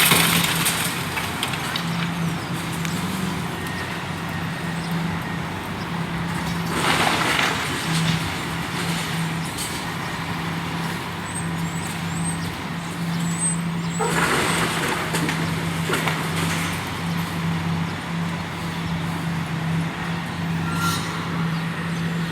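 Street traffic: a steady engine hum, with vehicles rushing past about every seven seconds. A few faint bird chirps come in the middle.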